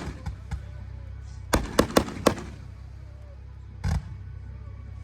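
Fireworks going off: a few light pops in the first second, then a quick run of four sharp bangs about two seconds in, and a longer crackling burst about four seconds in.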